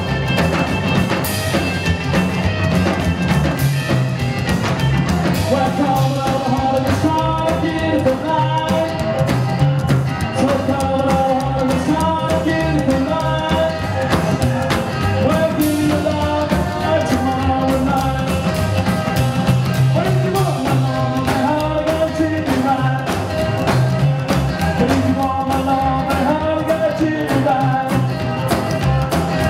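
A live rockabilly band playing a song, with acoustic rhythm guitar, electric guitar, slapped upright double bass and drum kit. A man sings lead over it from about six seconds in.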